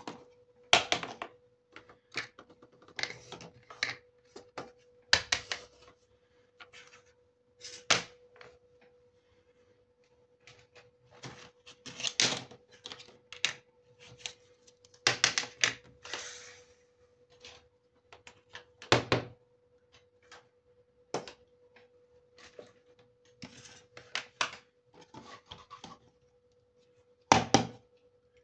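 Small plastic toy furniture pieces being handled and set down on a hard tabletop: a string of irregular clicks and knocks with quiet gaps between them, over a faint steady hum.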